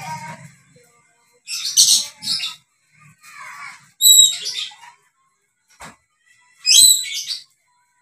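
Dusky lory giving loud, high-pitched screeching calls in separate bursts, about two seconds in, at four seconds and near seven seconds, with softer calls between and a sharp click near six seconds.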